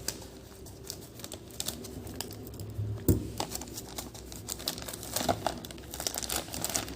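Delivery packaging being crinkled and pulled open by hand: irregular crackling of the wrapping, with a sharper snap about three seconds in.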